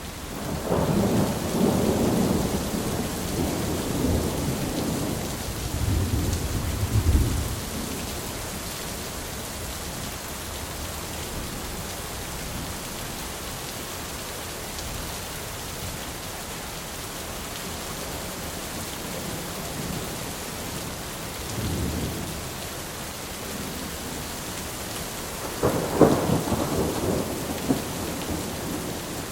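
Thunderstorm: steady heavy rain with rolling thunder. A long rumble of thunder opens and fades out after about eight seconds, a softer rumble comes around twenty-two seconds, and a sharper, louder clap with rumble follows near the end.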